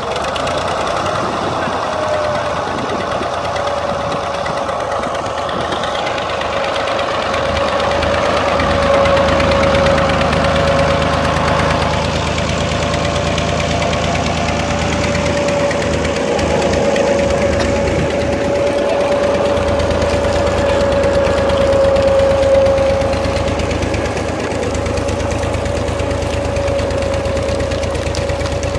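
Massey Ferguson 135 tractor engine running steadily under load, driving a sugarcane crusher through its shaft, with a steady whine over the engine's low note.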